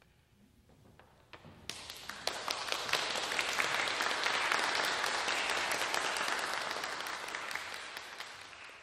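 Audience applause at the close of a song performance. After a few scattered claps, the applause breaks out about two seconds in, fills the middle, and begins to die down near the end.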